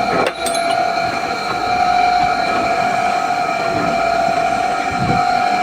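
A steady, high-pitched mechanical whine over a rumbling noise, with a brief break about a third of a second in.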